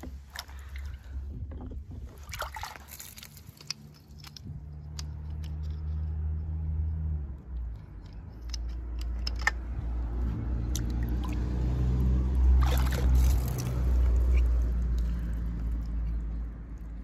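Water splashing and dripping as wet toy cars are handled, with a few splashier moments about two seconds in and again near twelve seconds, over a steady low mechanical hum that grows louder in the second half.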